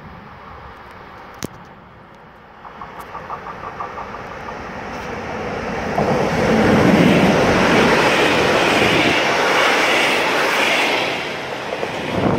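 Freight train approaching and passing close by. The rolling noise grows from about two and a half seconds in and is loudest when the locomotive goes past about six seconds in, with a deep rumble. Then the covered hopper wagons roll by with a steady rumble and wheel hiss.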